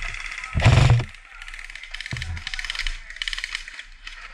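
Airsoft guns firing in short rattling bursts of rapid clicks across the field, with a loud thump about half a second in and a softer one about two seconds in.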